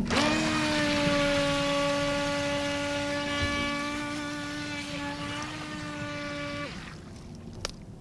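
Electric motor of a Force1 Velocity RC speedboat whining at one steady pitch as it throttles up from a standstill and drives the boat across the water, fading slowly as the boat moves away, then cutting off about six and a half seconds in. A short click follows near the end.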